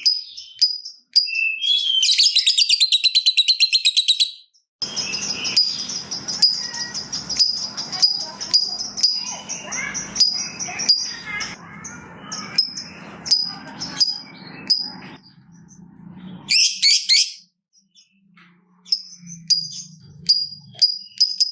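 Lovebird chattering in rapid, repeated high chirps, broken by a long, fast, rattling trill (the 'ngekek') about two seconds in and a shorter one later. A long stretch of busier chatter mixed with clicks fills the middle.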